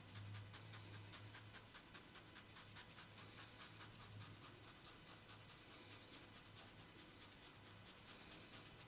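Faint, fast and even scratchy strokes, several a second, of hands briskly rubbing during a head massage, over a steady low hum.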